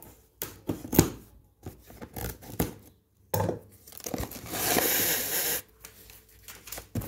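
Cardboard shipping box being handled and opened: a few knocks and rustles, then a long tearing rip about four to five seconds in as its seal is pulled off.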